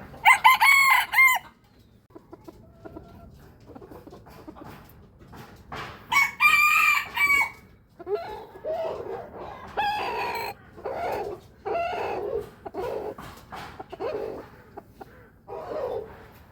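Rooster crowing twice, each crow a long, high, pitched cock-a-doodle-doo about two seconds long, the second about six seconds in. Then a run of shorter, lower clucking calls from chickens, about one a second.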